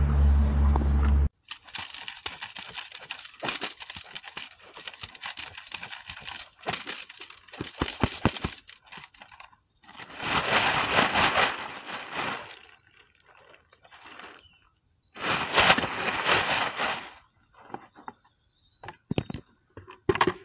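A low rumble for about the first second, cut off abruptly. Then irregular bursts of crackling and scuffling as a Doberman grips and tugs at the heavy fabric of a bite suit, with near-silent gaps between.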